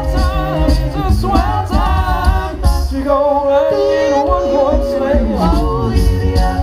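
Five-man a cappella group singing a song in close harmony through microphones, over a steady low vocal beat. Around the middle the voices hold a chord for about two seconds, then a low voice slides down.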